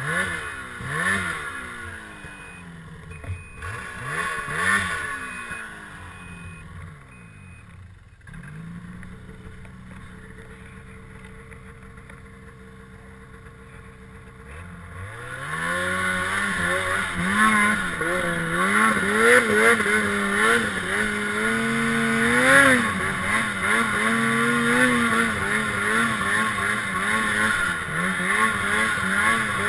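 Snowmobile engine revving in short bursts while the sled sits stuck in a hole it has dug through the snow, then settling to a steady idle. About fifteen seconds in it is opened up and held at high revs, the pitch wavering, as the sled climbs the slope.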